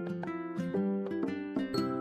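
Background music: a light tune of plucked-string notes, a few notes a second.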